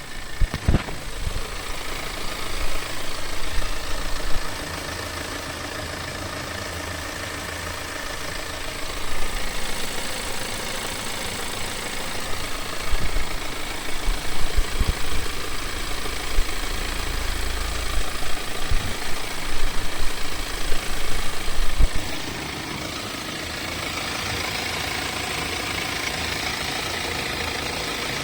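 BMW N47 four-cylinder diesel engine running, with the noise the owner suspects may be timing chain noise. Its loudness swells unevenly with low rumbles, then settles into a steadier sound about 22 seconds in.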